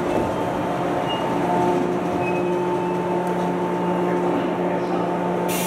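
JR Kyushu 415 series electric train at the platform, its onboard electrical equipment giving a steady hum. A sudden hiss of air starts near the end.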